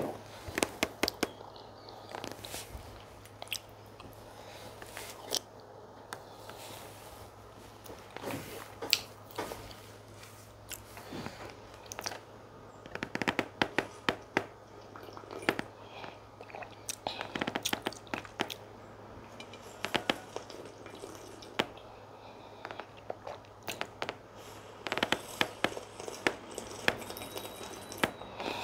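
Close-miked chewing of chicken pepper soup and fufu: wet mouth clicks and smacks coming in irregular clusters, over a steady low hum.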